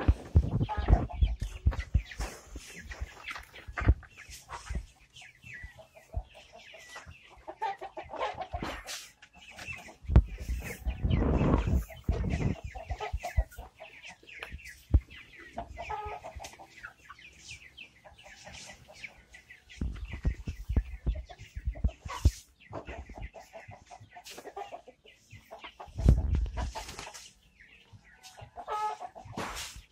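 A flock of ayam kampung super chickens clucking, many calls overlapping. Short knocks and rustles run through it, and there are louder low rumbles a few times.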